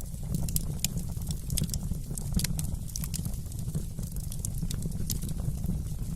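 Wood fire burning in a fireplace, crackling with frequent small irregular pops over a steady low rumble of the flames.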